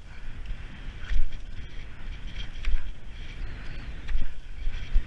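Skate skis gliding and scraping on packed snow, with pole tips clicking as they are planted, while wind rumbles on the camera microphone. The sound swells about every second and a half with each stride.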